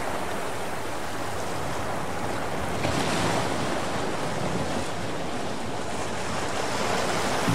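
Small sea waves washing in over a pebble beach: a steady rush of surf.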